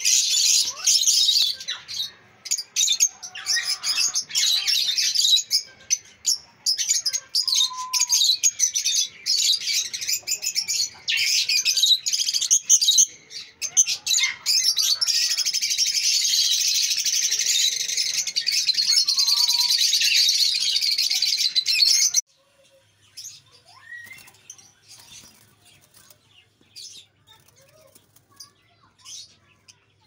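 Caged albino lovebirds chattering: a dense, continuous high-pitched chirping that cuts off sharply about 22 seconds in, leaving only scattered faint chirps.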